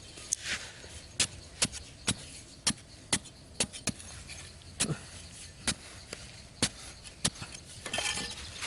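A hand tool striking again and again in sharp chops, about a dozen blows roughly every half to one second, with a brief rustling swish near the end.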